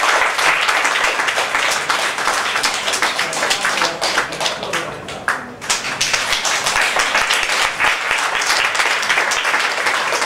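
Audience applauding with dense clapping. It thins briefly about halfway through, then picks up again.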